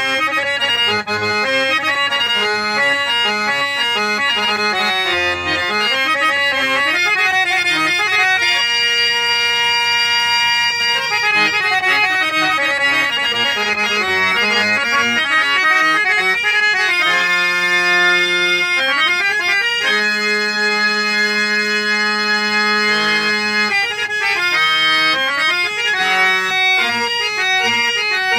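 Harmonium playing an instrumental melody: quick runs of reed notes, with long held chords around nine to eleven seconds in and again from about seventeen to twenty-four seconds.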